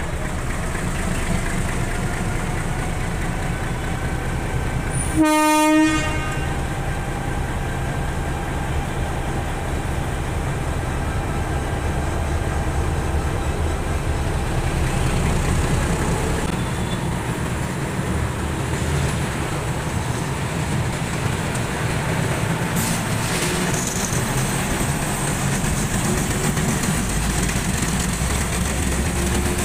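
A diesel-hauled passenger train running, heard from aboard one of its coaches: a steady rumble of wheels and engine, with one short train horn blast about five seconds in.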